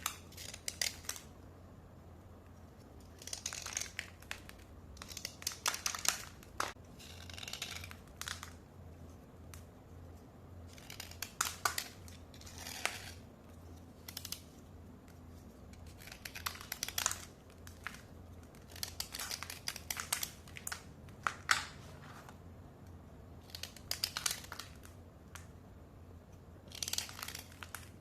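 Khushbu-brand white slate pencil being scraped dry, in clusters of short, crisp, scratchy strokes every couple of seconds with brief pauses between.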